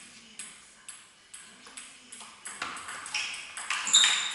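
Table tennis ball being rallied, a regular run of sharp clicks as it hits the bats and the table, about two to three a second, getting louder and quicker towards the end. A brief high squeak sounds near the end.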